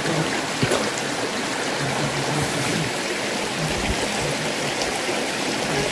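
Steady rushing of a nearby creek, with a couple of faint snaps, probably from brush underfoot.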